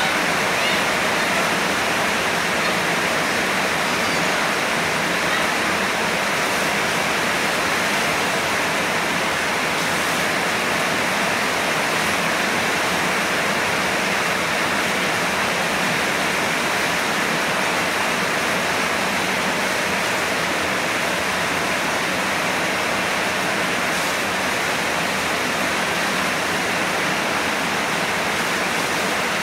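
Shower water spraying steadily onto a tiled bathroom floor, a constant rush of falling water.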